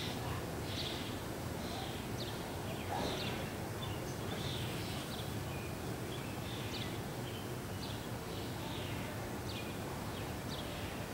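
Small birds chirping: short falling chirps, one or two a second, over a steady low hum.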